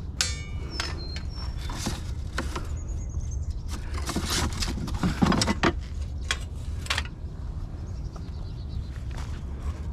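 Scattered clanks and knocks of scrap metal pieces being handled, with a quick rattle at the start, over a steady low rumble; the knocks stop about seven seconds in.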